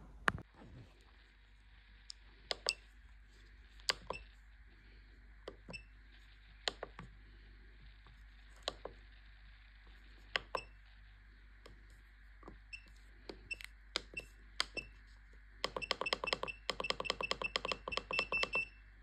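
Keypad beeps from an I-Tech T-One Medi Pro electrostimulation unit as its buttons are pressed: single short high beeps every second or so. Near the end comes a fast run of beeps, about eight a second, as the channel intensity is stepped up.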